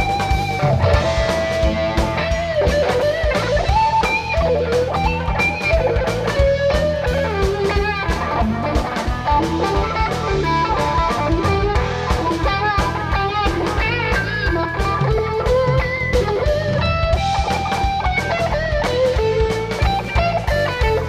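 Live rock band playing an instrumental blues-rock jam: an electric lead guitar solos with bending, wandering notes over bass guitar and a drum kit.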